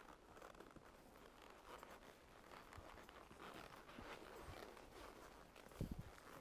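Near silence: faint irregular scuffing and rustling, with a brief low thump near the end.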